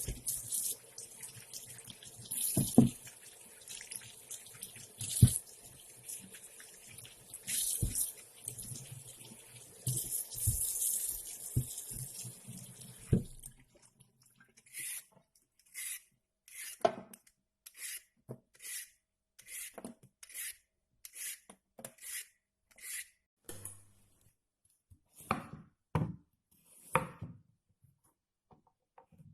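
Kitchen tap running into a sink while things are washed under it, with scattered knocks and clatter. About halfway through the water is turned off, and a run of short, evenly spaced scraping strokes follows, roughly one or two a second.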